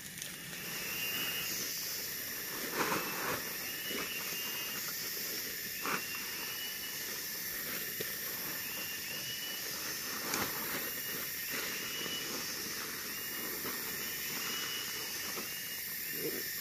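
Forest ambience: a steady high insect drone, with a short chirping call that repeats about once a second and a few soft knocks.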